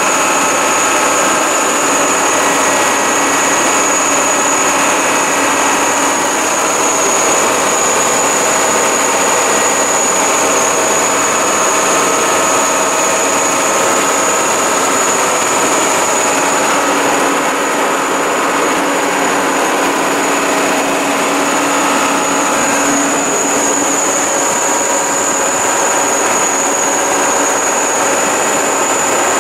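The Burgh Island sea tractor running steadily as it drives through shallow sea water: a constant mechanical drone with a steady high-pitched whine.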